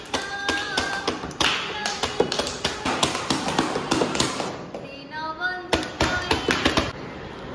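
Rapid, irregular tapping and clapping over music. Held sung or melodic notes and bits of voices run underneath, with a short wavering pitched phrase about five seconds in.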